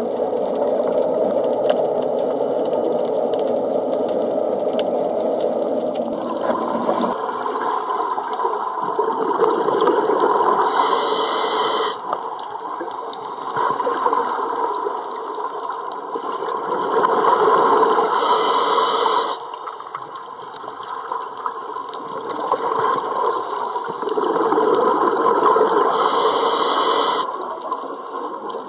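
Underwater sound through a waterproof camera's microphone: a steady muffled rumble of water and a diver's scuba regulator breathing, with three short bursts of breath and bubbles about eight seconds apart.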